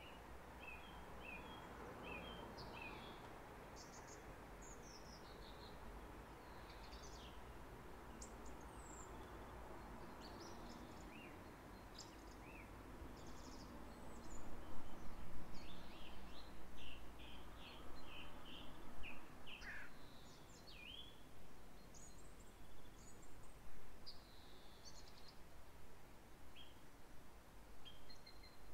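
Small songbirds chirping and singing in short, high notes over a steady low background hum of the outdoors. The birdsong gets louder and busier about halfway through.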